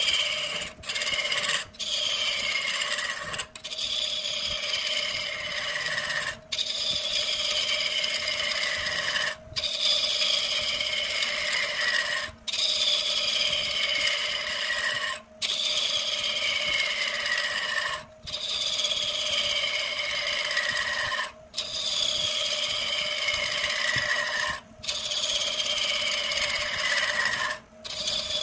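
Wood lathe with a turning tool cutting into a spinning wooden blank: a continuous scraping cut with a whine that falls in pitch as each pass goes on, broken off briefly about every three seconds.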